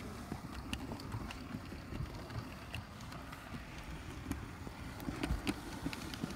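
HO-scale brass 0-4-0 tank locomotive running along the track with a boxcar in tow: a steady low rumble from its motor and wheels, with irregular light clicks throughout. The locomotive runs on replacement drive wheels and a Taiwan-made motor.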